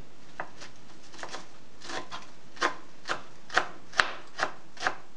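Kitchen knife chopping fresh parsley on a plastic cutting board: sharp knocks of the blade on the board, a few scattered at first, then a steady run of about two a second from about halfway through.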